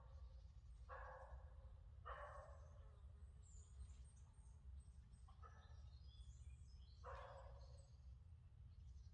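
Faint animal calls, short and about half a second each, four times, over thin high bird chirps and a steady low rumble.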